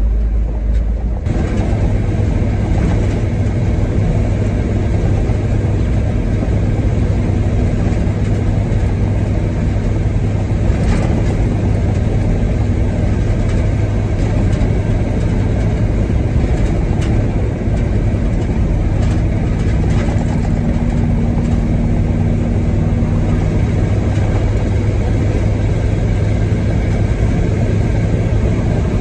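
US military truck engine running at a steady speed on the road: a loud, constant drone throughout.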